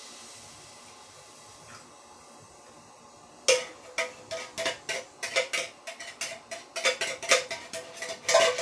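Coconut milk pouring softly into a pot, then, from about three and a half seconds in, a metal spoon scraping and knocking inside the emptied tin can: a quick, irregular run of sharp metallic clicks with a ringing note.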